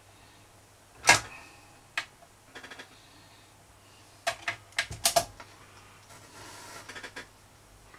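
Record autochanger running through its cycle: a sharp clunk about a second in as the mechanism trips and the single drops onto the platter, a quick run of small ticks, then a cluster of clicks and knocks around five seconds in as the tone arm swings over and lowers the stylus onto the record. Soft hiss of the stylus in the lead-in groove follows near the end.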